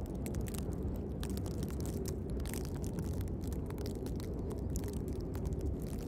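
Blizzard wind buffeting the microphone: a steady low rumble, with many faint, irregular ticks over it.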